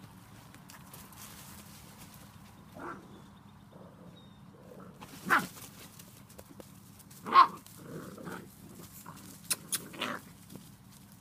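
Seven-week-old Spanish Water Dog puppies giving short yips and barks at play, a handful of separate calls with the loudest a little past halfway and a quick cluster near the end.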